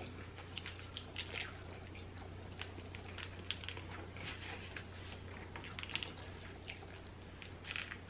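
Close-miked eating sounds: wet chewing with small irregular mouth clicks and smacks, over a steady low hum.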